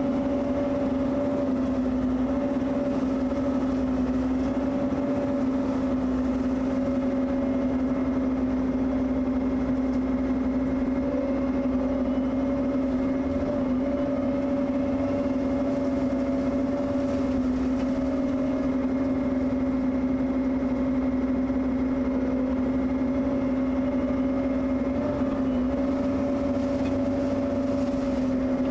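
Bobcat E55 mini excavator running steadily with its hydraulic Blue Diamond rotary brush cutter spinning, lowered into a brush pile from above: an even, steady hum that holds the same pitch throughout.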